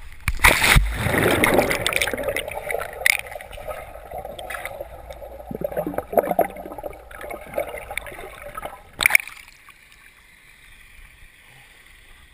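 Splash as a GoPro goes into a swimming pool, followed by muffled underwater bubbling, gurgling and sloshing. A second sharp splash comes about nine seconds in, after which the sound drops to a much quieter hiss.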